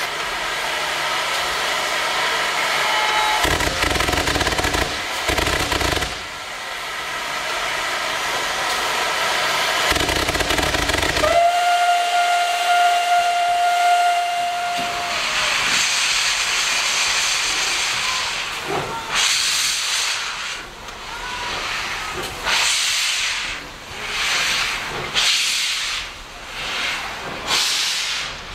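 ČSD class 423 steam tank locomotive 423.0145 standing with steam hissing, then giving one long whistle blast of about three and a half seconds. A loud rush of steam from the open cylinder drain cocks follows as it starts away, and its exhaust chuffs begin slowly and quicken.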